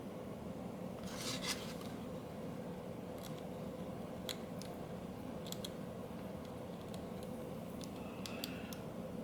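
Small screwdriver driving tiny screws into a camera body: scattered faint clicks and a short scrape about a second in, over a steady background hum.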